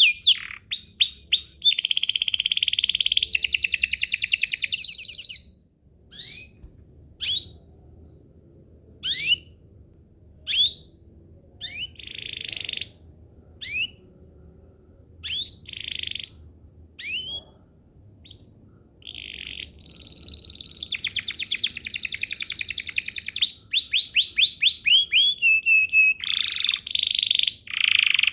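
Domestic canary singing. It opens with fast, high rolling trills, breaks into separate short chirps and quick sweeping notes for a long stretch, then returns to long rapid trills about two-thirds of the way in.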